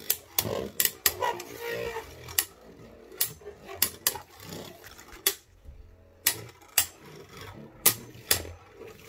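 Two Beyblade spinning tops, Cosmic Kraken K5 and Gargoyle G5, battling in a plastic stadium. Irregular sharp plastic clacks, about fifteen in all, as the tops strike each other and the stadium wall.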